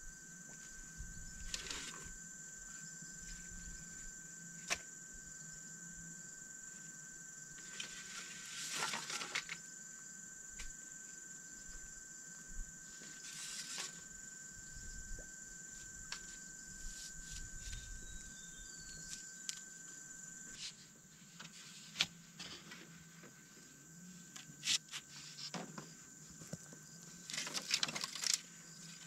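Bamboo poles being handled and set into garden soil, giving scattered knocks, clicks and rustles, more of them near the end. Insects buzz steadily behind, a constant high-pitched drone.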